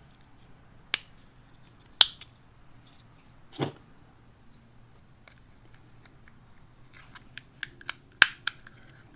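Sharp plastic clicks and snaps of rocker switches and switch-panel parts being pressed and fitted by hand: a few single clicks, then a quick run of clicks near the end.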